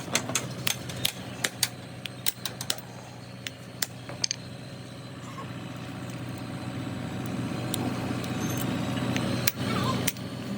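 Sharp metallic clicks and taps, thick in the first three seconds and then sparse, from work on a truck's cross bearing (universal joint), over a steady engine hum that slowly grows louder.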